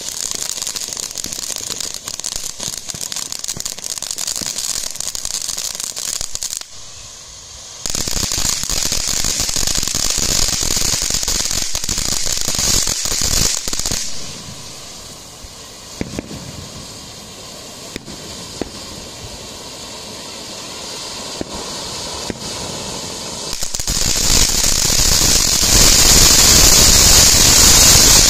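Peacock Tail Fan Fountain, a ground fountain firework, spraying sparks with a loud hiss and crackle. The hiss drops briefly about a quarter of the way in, comes back strongly, eases off past the middle, then builds to its loudest near the end.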